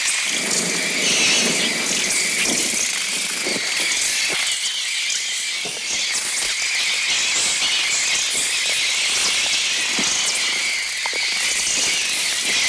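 Mixtur-Trautonium electronic bird effect of a swarm of swifts: a dense, shrill mass of twittering and squealing calls. A lower rushing layer sits under it for the first couple of seconds.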